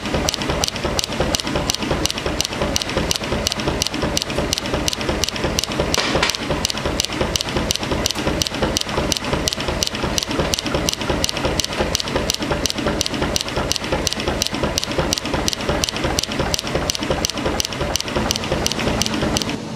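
Pneumatic power hammer running with a steady, rhythmic knocking, about three beats a second, that cuts off near the end.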